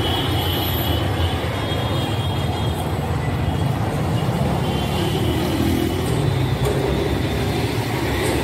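Steady road traffic noise from a busy city street: the low rumble of passing vehicle engines, with a thin high tone near the start and again about five seconds in.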